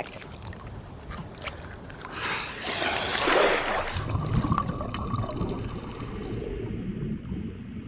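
Water splashing and rushing as a scuba diver goes under the surface, about two seconds in, followed by duller, muffled underwater water noise.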